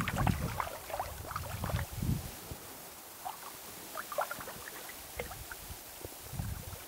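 Irregular splashes and drips of water as a hooked trout is brought to hand in shallow creek water. The splashing comes thickest in the first two seconds, then turns sparse.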